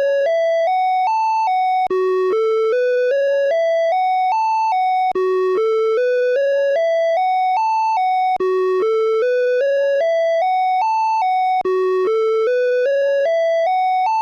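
Åland Islands emergency alert (EAS) alarm tone: a loud run of short electronic notes climbing step by step, then ending on a slightly lower note. The run restarts after a brief gap about every three and a quarter seconds, about four times here.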